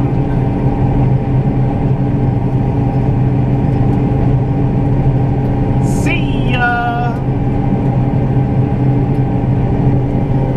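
Farm machinery engine running with a steady, loud drone and a constant low hum. A short higher-pitched sound rises over it about six seconds in.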